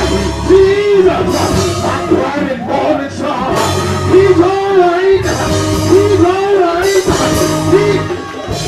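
Loud live gospel praise music from a church band with a drum kit, with a singing voice carrying a melody that bends up and down over it.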